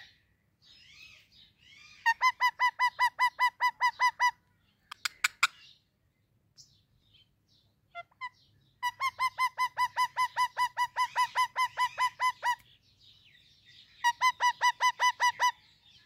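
Indian ringneck parrot calling in three runs of short, evenly repeated notes, roughly six a second, the longest run about four seconds, with softer chirps in between.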